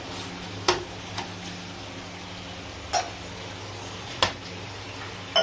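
A metal ladle clinking against a large metal serving pan as broth is dished out: a handful of sharp clinks a second or two apart, over a steady low hum.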